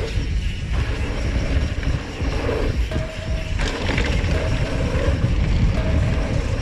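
Mountain bike riding fast down a dirt jump trail, heard from the rider's own camera: a steady low rumble of knobby tyres on packed dirt and wind buffeting the microphone.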